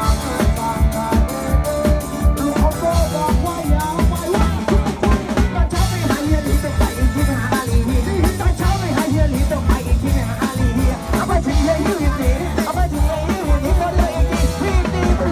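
Live Thai band music from a parade sound truck: a fast, steady drum beat under a wavering melody line.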